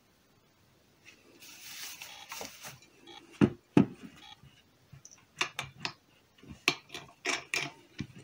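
Polyurethane foam gun being worked as it is tested with cleaner after its stuck ball valve was freed: a short hiss about a second in, then sharp metallic clicks and knocks from the trigger and gun body, two loud ones followed by a quicker string.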